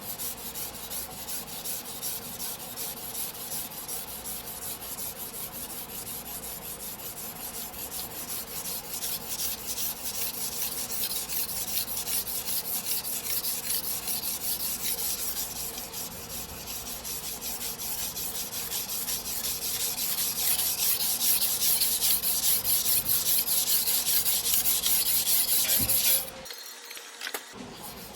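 Steel knife blade, a single-bevel sujihiki, rubbed back and forth on a wet whetstone in quick, even strokes. The scraping grows louder about two-thirds of the way through and stops abruptly near the end.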